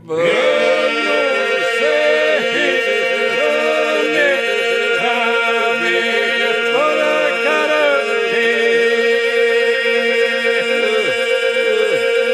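Albanian Lab polyphonic folk song sung unaccompanied: a group holds a steady drone while lead voices sing bending, ornamented lines over it. It comes in right at the start after a brief pause.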